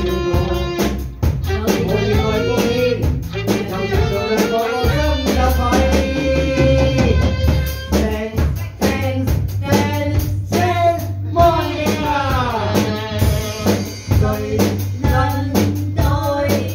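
A pop song with a singer over a band of drum kit, bass and guitar, the voice holding long notes with slides between them.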